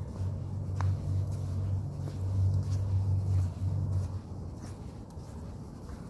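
Footsteps on wet sand, about one a second, over a low droning rumble that drops away about four seconds in.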